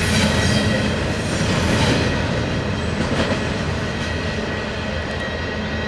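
Rear of a double-stack intermodal freight train rolling away: steady rumble and rattle of the well cars' wheels on the rail, slowly fading as the last car recedes.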